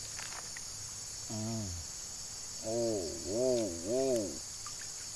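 Steady high-pitched chorus of crickets and other insects. Over it come four short, low hums that rise and fall in pitch: one about a second and a half in, then three close together between about three and four seconds in.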